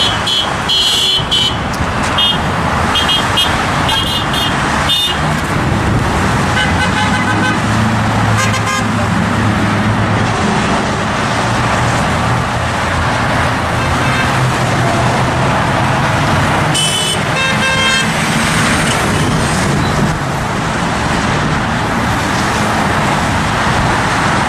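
Steady highway traffic passing below, with vehicle horns honking: several short toots in the first few seconds, more a little later, and a longer honk about two-thirds of the way through.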